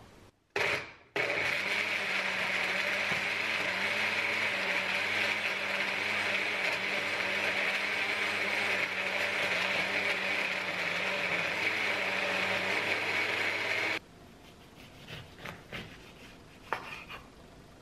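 Personal single-serve blender running on a watery ginger mix: a brief pulse, then a steady motor whir for about thirteen seconds that cuts off suddenly. Near the end, a few faint taps of a knife slicing an orange on a wooden cutting board.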